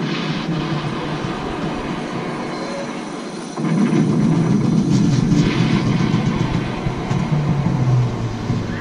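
Parachute-jump simulator's soundtrack: a steady aircraft-like rumble that jumps louder about three and a half seconds in.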